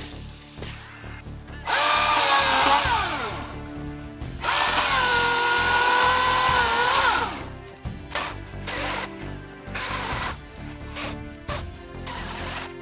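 Cordless electric chainsaw motor revved in two bursts, a short one and then a longer one about three seconds long. Each is a steady high whine that drops in pitch as the trigger is released and the chain spins down. Faint background music plays underneath.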